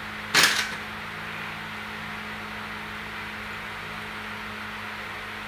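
A single sharp metallic knock from a hammer about half a second in, with a brief ringing tail, over a steady low hum.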